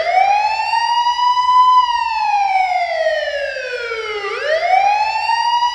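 Wailing siren sound effect between tracks of a dancehall mix. The pitch climbs quickly and then sinks slowly, and the cycle starts again about four seconds in, with no beat underneath.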